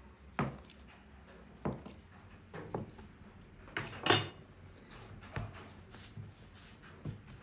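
Metal cleaver chopping through a log of dough onto a wooden cutting board: a series of sharp knocks about a second apart, the loudest about four seconds in.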